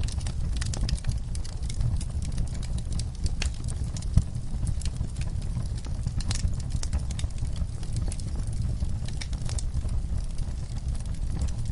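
Wood fire crackling, with irregular sharp pops and snaps over a low steady rumble; one louder pop about four seconds in.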